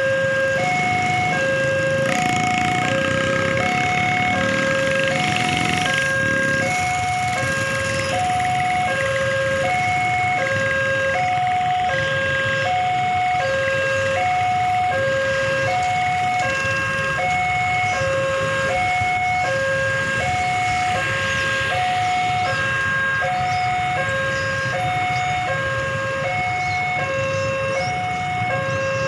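Railway level-crossing warning alarm sounding with the barriers down, signalling an approaching train: two electronic tones alternating evenly, high then low, about once every 1.3 seconds. Beneath it, waiting motorcycles and cars idle.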